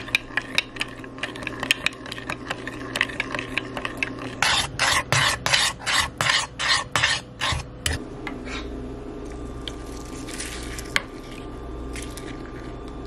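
Metal spoon stirring cornmeal and milk in a ceramic mug. It first clinks against the sides in quick light taps, then scrapes in faster, louder strokes about four or five a second. After about eight seconds the strokes stop and a low steady hum is left.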